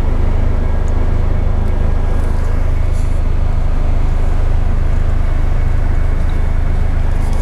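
Steady low rumble heard from inside a car waiting at a railroad crossing while a short freight train rolls past; the loudness holds even after the last car clears, so much of it is the car's own running noise in the cabin.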